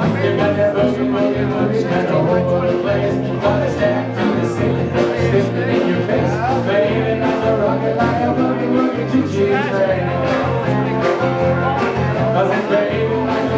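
Live country dance band playing, with guitars over a steady beat.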